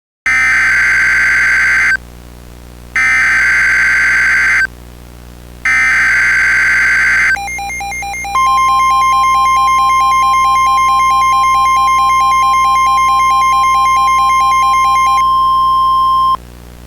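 Emergency Alert System header: three bursts of screechy warbling data tones, each about a second and a half long, with about a second between them. Then the attention signal follows: a pulsing buzz joined by a long, steady high tone. The buzz stops about a second before the tone, which cuts off suddenly after about eight seconds.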